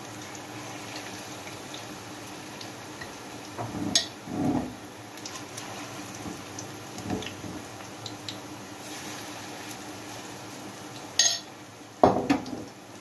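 Chicken pakoras deep-frying in oil in a metal pan, a steady sizzle, with a metal slotted spoon knocking and scraping against the pan a few times as they are turned, loudest near the end.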